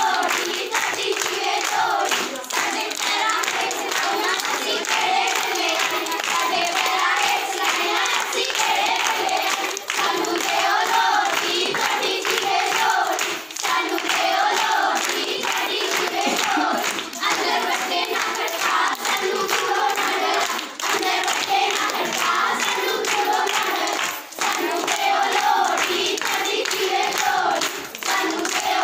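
A group of girls singing a Punjabi folk song together, with steady rhythmic hand clapping keeping time, as accompaniment to a giddha dance.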